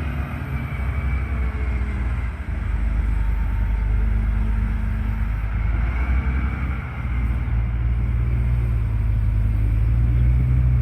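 Heavy wheel loader's diesel engine running, a deep steady drone that grows louder a few seconds in and builds toward the end, with a fainter whine rising and falling above it.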